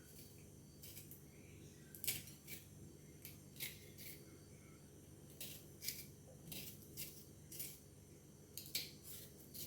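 Kitchen knife cutting ripe plantain against a cutting board: quiet, irregularly spaced short crisp cuts and scrapes, about one or two a second.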